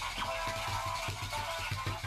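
Electronic music with a steady beat and a repeating melody.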